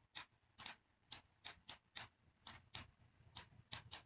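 Computer mouse button clicking: about a dozen quiet, sharp clicks at uneven intervals as on-screen images are selected, dragged and resized.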